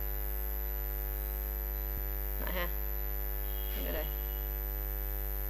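Steady electrical mains hum in the recording, a low drone with a ladder of steady overtones and a faint high whine, with a faint tick about every two seconds.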